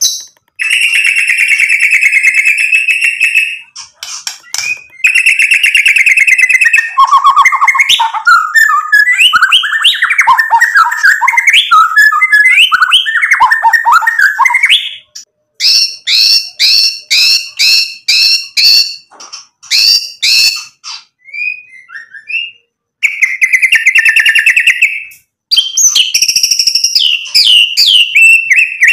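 Male white-rumped shama (murai batu) singing a loud, varied song. It mixes buzzy trills, quick whistled runs and a string of sharp repeated notes, with a short pause about three quarters of the way through and a run of falling notes near the end.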